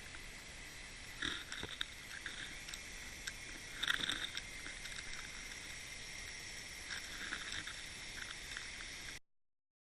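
Small waves lapping and splashing against a drifting kayak in choppy water, in soft bursts over a steady hiss. The sound cuts off suddenly about nine seconds in.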